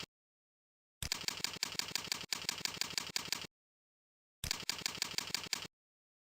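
Computer keyboard typing: runs of quick keystrokes at about five a second, lasting a second or two each, broken by stretches of dead silence.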